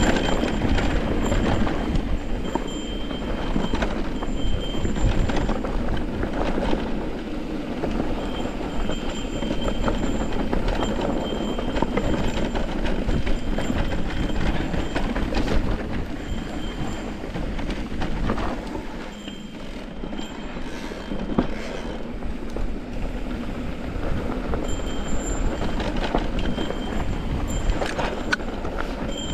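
An e-mountain bike rattling and its tyres rumbling over a dirt singletrack on a descent: a steady rough clatter full of small knocks. A faint high whine comes and goes.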